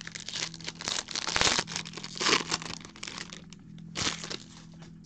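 Foil trading-card pack wrapper torn open and crinkled by hand, in irregular crackling bursts, the loudest a little after one second, at about two and a half seconds, and at about four seconds.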